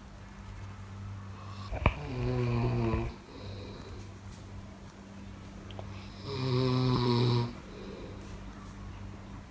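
A person snoring: two long, pitched snores about four seconds apart, each lasting about a second, with a short click just before the first. A steady low hum runs underneath.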